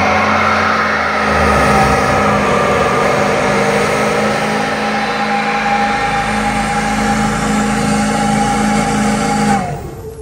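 Giant monster truck's diesel engine running hard at steady high revs under load as it ploughs through deep mud, falling away near the end.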